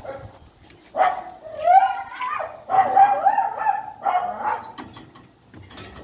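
A dog barking: a run of about four calls, some of them drawn out and rising in pitch.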